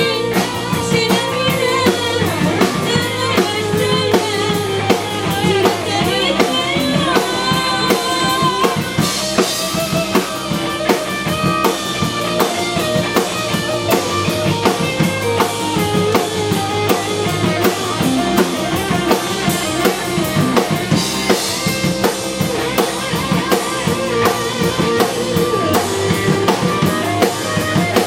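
Band music with a drum kit and guitar: a wavering, bending lead melody over a busy drum pattern, with cymbal crashes about nine seconds in and again around twenty-one seconds.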